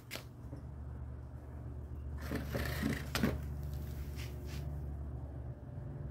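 Soft rustles and scrapes of fingers working in loose potting soil, pressing sprouted chickpea seeds into holes, in a few short bursts about two to three seconds in and again just after four seconds, over a steady low hum.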